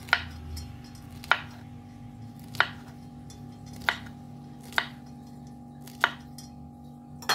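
Kitchen knife slicing terubuk (edible cane flower) into rounds on a wooden cutting board: seven sharp chops of the blade against the board, about one every second and a bit, over a steady faint hum.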